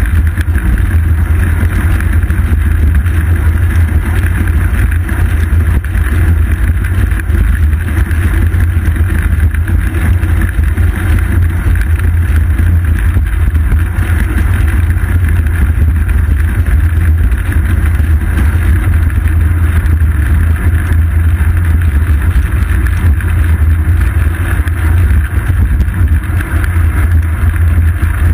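Road rumble and wind buffeting picked up by a camera mounted on a bicycle's seat post while riding on asphalt: a loud, steady low rumble that does not change.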